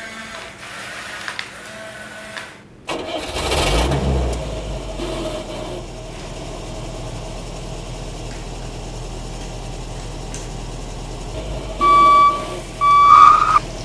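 An engine starts about three seconds in and runs at a steady low idle. Near the end come two short, loud, high-pitched beeps.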